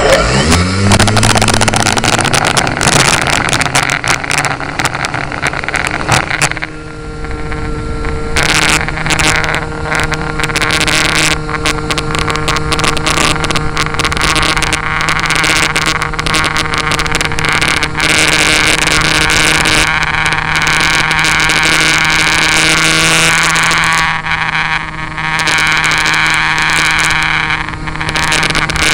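Electric motor and propeller of a Flyzone Cessna 182 RC model plane, heard from an onboard camera. The whine rises in pitch over the first second as the motor spools up. It then holds as a steady whine under wind rushing over the microphone.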